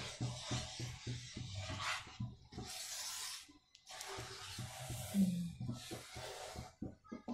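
Wooden spatula scraping and swishing through thick wheat-flour and sugar-syrup batter in a nonstick kadai, in repeated strokes with short pauses between them. Background music plays faintly with a steady beat.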